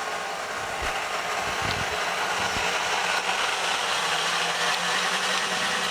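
Electric kitchen mixer running steadily as it whips a vanilla pudding-and-milk filling in a bowl, with a steady motor whir that gets louder about a second in.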